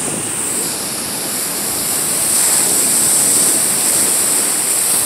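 Ocean surf washing in and foaming through rocks at the shoreline, a steady rushing hiss that swells slightly about two seconds in.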